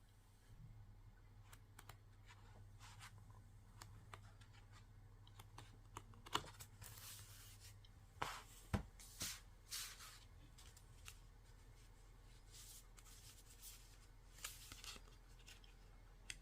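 Faint handling of packaging during an unboxing: scattered light clicks and taps with a few short rustles, busiest in the middle, over a steady low hum.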